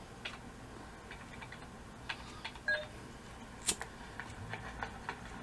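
Faint scattered clicks from a video editing console's buttons and controls, with a short electronic beep about two and a half seconds in and one sharper click a second later.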